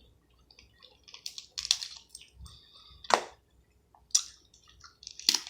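Close-up eating sounds of seafood being shelled and eaten: scattered sharp cracks and wet clicks as shells are broken and picked apart, with chewing between them.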